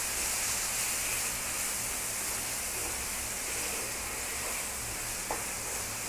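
Yogurt-marinated chicken pieces sizzling steadily in hot oil in a non-stick frying pan while being stirred with a wooden spatula. A single light click about five seconds in.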